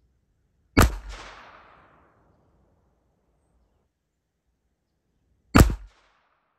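Two shots from a Ruger Mark IV Hunter .22 LR pistol firing CCI AR Tactical 40-grain rounds, about five seconds apart. Each is a sharp crack, and the first echoes away over about a second.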